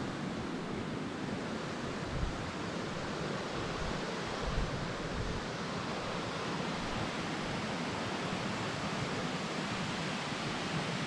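Steady rush of water from a small waterfall, with two brief low thumps about two and four and a half seconds in.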